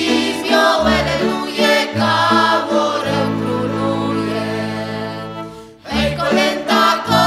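Background music with a choir singing. A long chord is held through the middle, the music drops out briefly near the end, then comes back in.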